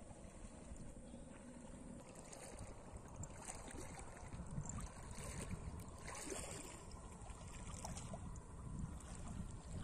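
Faint sloshing and splashing of shallow floodwater as people wade and a cast net is hauled up out of the water, growing a little louder toward the end.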